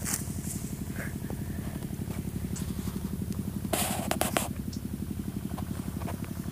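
An engine running steadily with a fast, even khat-khat chugging beat. A brief rustling noise cuts in about four seconds in.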